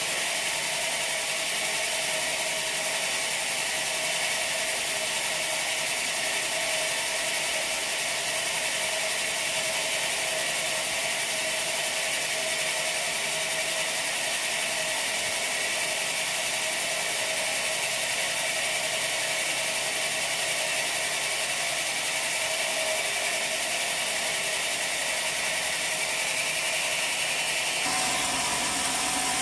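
Sawmill machinery running steadily: a dense high hiss with a held mid-pitched tone, shifting in character about a second before the end.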